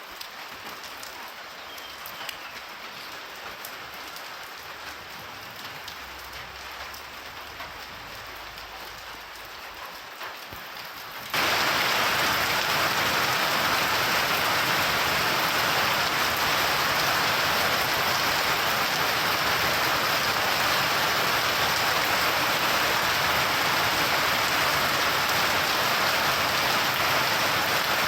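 Steady rain falling, fairly light at first, then about eleven seconds in it switches abruptly to a much louder, heavier downpour that keeps up evenly.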